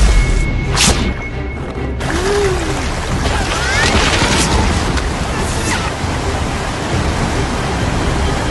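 Dense rush of falling water from a large waterfall, with music and a few brief whooshing sound effects over it.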